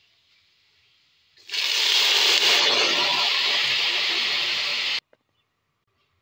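Water poured into a hot steel pot of pan-toasted broken spaghetti, hissing and sizzling as it hits the hot metal and turns to steam. It starts about a second and a half in and cuts off suddenly about five seconds in.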